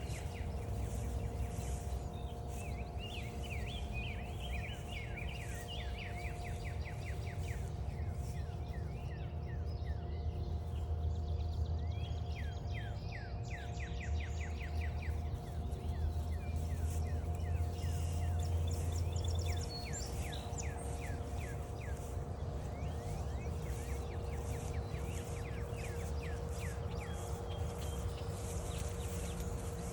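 Several songbirds singing and calling in quick chirps and trills, over a steady low rumble that grows stronger for several seconds around the middle, with a faint steady hum underneath.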